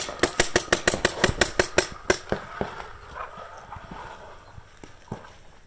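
Purple 2002 Warped Sportz Dark Angel LCD paintball marker firing a rapid, even string of shots, about eight a second, which stops about two seconds in. A few scattered, fainter pops and knocks follow.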